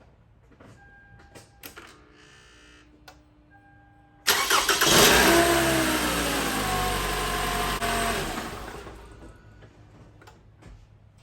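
A Toyota Camry engine is started on a freshly fitted battery. It cranks and catches suddenly about four seconds in, revs up, then falls back and settles toward idle before dying away near the end. Two faint short beeps come before the start.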